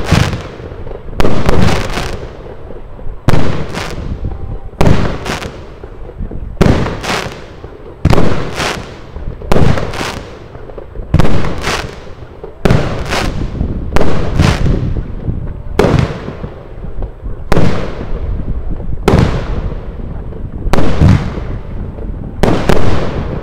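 GAO Blossom firework battery (cake) firing its shots one after another: a steady series of sharp bangs, about one every second and a half, each with a short fading tail.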